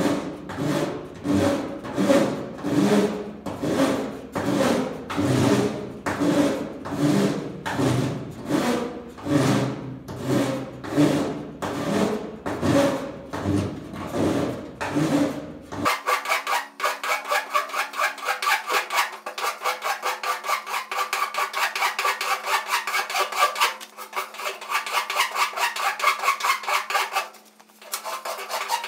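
Long flat file rasping back and forth over a welded seam in sheet-metal car bodywork, knocking the weld bead down. Even strokes at about one and a half a second, then about halfway through the strokes turn quicker and lighter with a higher rasp.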